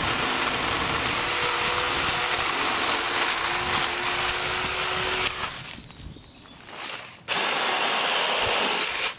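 Black & Decker Alligator battery lopper's chain running as it cuts through branches: one run of about five seconds, a pause of about two seconds, then a second run of about two seconds.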